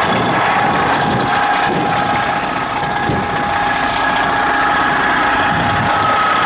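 The 1968 GMC truck's naturally aspirated Detroit Diesel 6-71 two-stroke engine running steadily, with a steady high whine over its sound.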